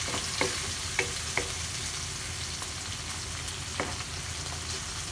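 Sliced red onions sizzling in hot oil in a nonstick frying pan as they are stirred with a wooden spatula, with a few short clicks of the spatula against the pan.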